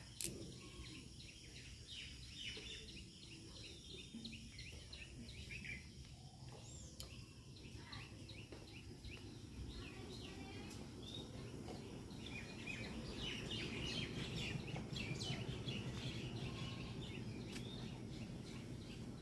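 Small birds chirping and twittering all through. There is a sharp click just after the start, and in the second half a low rumbling handling noise builds as the phone is carried along.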